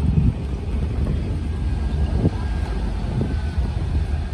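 Steady low rumble of wind buffeting the microphone while the camera moves along a dirt road.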